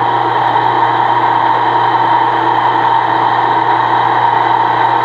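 Bench drill press running steadily, its bit drilling into a white hood scoop panel held on the table.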